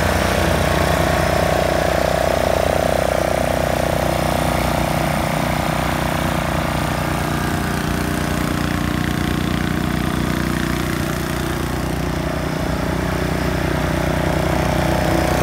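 12-horsepower Briggs & Stratton gas engine of a Snapper rear-engine riding mower running loud and steady while the mower is driven across the lawn.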